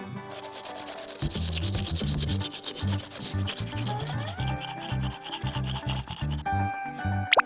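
A rapid rubbing noise of many quick strokes a second, over background music with a bass line. The rubbing stops about six and a half seconds in.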